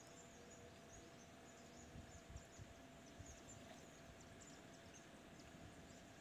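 Near silence: faint outdoor ambience with scattered faint high chirps.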